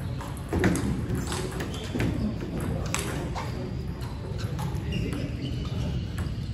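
Table tennis hall ambience: irregular sharp clicks of celluloid ping-pong balls striking tables and paddles in play, over a steady low hum and faint voices.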